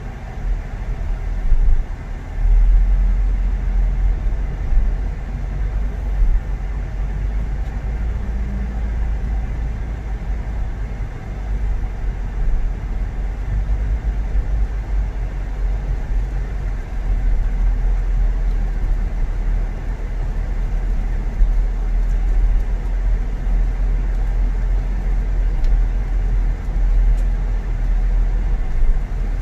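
Car being driven, with a steady low rumble of engine and road noise.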